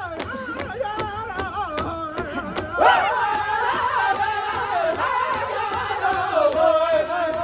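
Powwow drum group singing an intertribal song in high, wavering voices over a steady beat on a large shared powwow drum, about two to three strokes a second. The singing swells louder about three seconds in.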